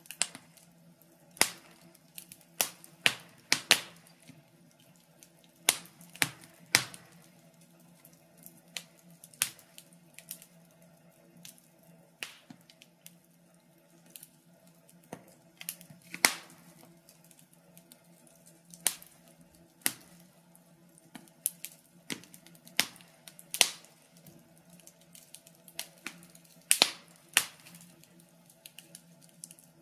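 Wood fire crackling: irregular sharp pops and snaps, the louder ones a second to several seconds apart with fainter ticks between, over a faint steady low hum.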